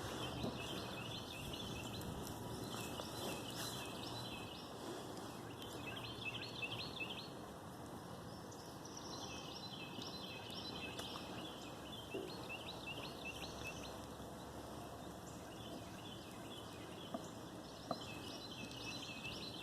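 Birds singing in repeated bursts of short high chirps over steady outdoor background noise, with a couple of faint clicks near the end.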